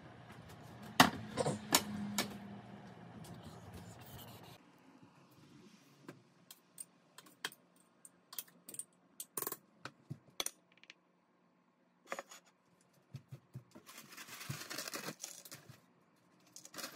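Clicks, taps and clinks of kitchen tongs and utensils against a pan and plates as food is dished out, loudest about a second in, over a low hum that stops about four seconds in. A short rustle comes near the end.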